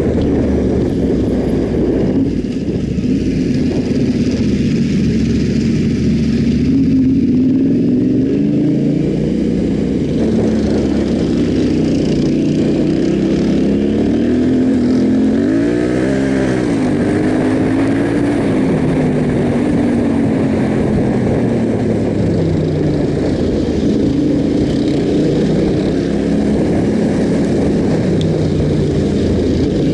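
Yamaha Ténéré 700's parallel-twin engine running under way off-road, its revs rising and falling with the throttle, with a quick rev up and back down about halfway through, over a steady rushing noise.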